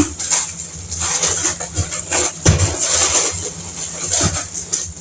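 Plastic snack packets and bags rustling and crinkling as they are handled and packed, with irregular knocks and crackles.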